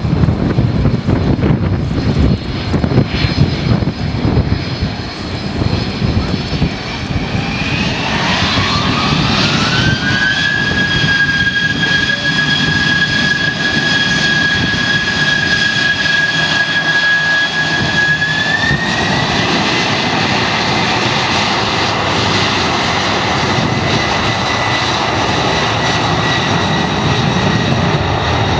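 Boeing 747-400F's four turbofan engines spooling up to takeoff thrust for the start of the takeoff roll, over a steady engine rumble. A whine rises about seven seconds in, holds a steady pitch, and steps up higher again about eighteen seconds in. Gusts of wind hit the microphone in the first few seconds.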